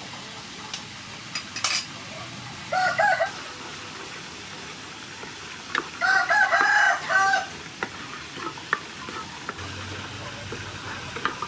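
A rooster crows twice, a short call about three seconds in and a longer one about six seconds in. Under it, a wooden spatula stirs and taps in a frying pan of sizzling sauce.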